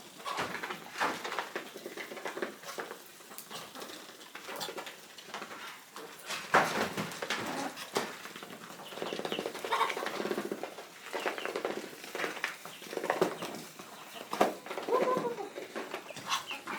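Chickens and ducks calling while they feed, with short clucks and nasal calls scattered through, over many small clicks and rustles of pecking at food.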